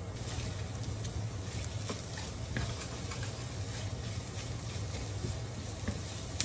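Egg, onion and herbs frying in oil in a non-stick pan, a steady sizzle, with a wooden spatula stirring and scraping through the setting egg and a few faint taps against the pan.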